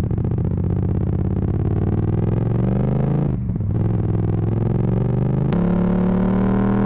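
Yamaha MT-07 parallel-twin engine through a full Akrapovic titanium exhaust, accelerating with its pitch rising, a brief drop about three and a half seconds in as a gear is changed, then pulling on at a steadier, higher note. The sound is distorted by an overloaded microphone.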